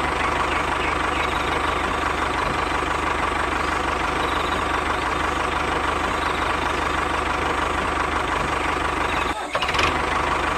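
An engine running steadily, with a brief break about nine and a half seconds in.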